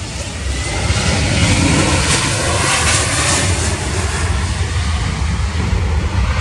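Boeing E-7A Wedgetail's twin CFM56 turbofans running as the jet passes low. The jet noise swells about a second in, and a whine in it falls in pitch as the aircraft goes by.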